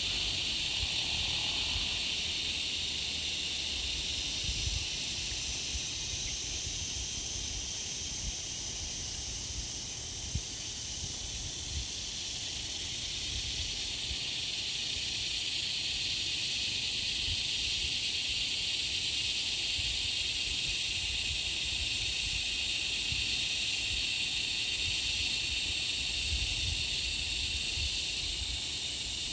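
Steady chorus of summer insects: a continuous high buzz with a faster pulsing layer above it, at about two beats a second.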